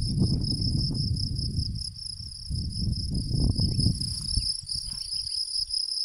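Field crickets singing: a continuous high-pitched trill from the grass, with a low rumble coming and going underneath.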